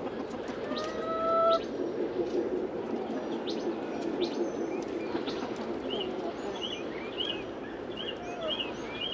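A flock of backyard chickens clucking softly and steadily as they feed, with one longer, slightly rising call about a second in. Near the end a small bird chirps repeatedly, a high note two or three times a second.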